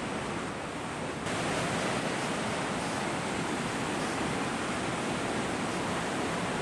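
Mountain stream rushing over boulders in white water, running high after days of heavy rain. A steady rush of water that steps up louder about a second in, then holds.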